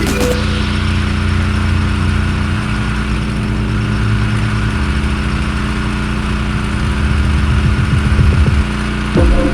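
Gas-engine pressure washer running steadily.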